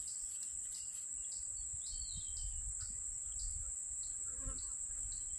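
Summer insect chorus: a steady high-pitched drone with soft chirps repeating about twice a second. A single short bird chirp comes about two seconds in, over a low rumble.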